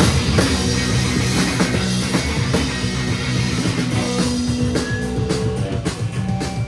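Live rock band playing loudly at full volume: electric guitar, bass and drum kit together.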